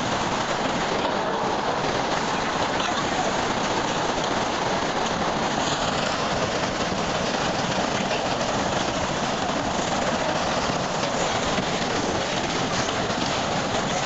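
Steady, dense rushing noise with faint, rapid ticks and rattles running through it.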